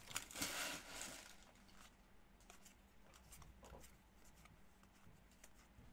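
Faint rustle of trading-card packs and cards being handled, fading out after about a second and a half, then near silence with a few faint ticks.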